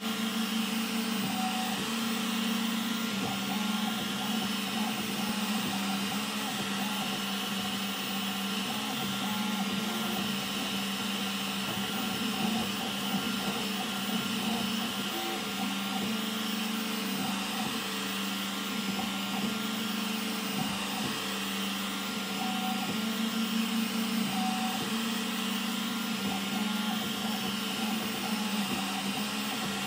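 BeTrue3D xBot 3D printer running a print: a steady fan hum under the whine of the stepper motors, which keeps shifting in pitch as the print head moves back and forth laying down infill.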